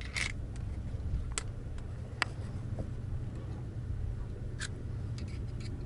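Yacht's shower and toilet drain pump running with a steady low hum, working but not keeping up with the water. A few sharp clicks sound over it.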